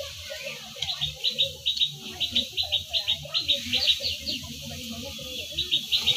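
Animal calls: quick runs of short, high chirps, several a second, repeating throughout, with lower wavering calls beneath them.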